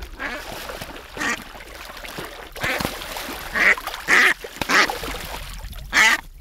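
Live decoy hen duck, a hybrid mallard-cross 'court-cri' caller bred for a soft call of few notes, quacking loudly about half a dozen times as it is pulled from the water by its tether, with splashing.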